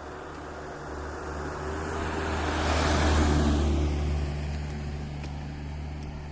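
A car driving past: a low engine hum and tyre noise that grow to a peak about three seconds in, then fade away.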